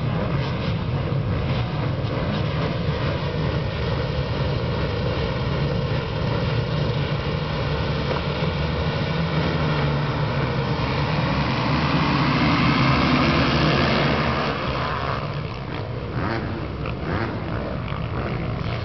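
A field of motocross bikes, mostly four-strokes with a 1996 Suzuki RM250 two-stroke among them, revving together at the starting line. About ten seconds in the pack launches, and many engines climb in pitch together up to the loudest point. The sound then drops away as the pack rides off.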